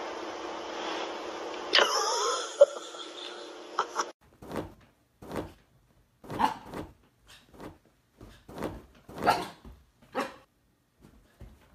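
Steady background hiss with a brief louder sound near two seconds. Then a string of short sounds, about one a second, from a husky pawing and digging at sofa cushions.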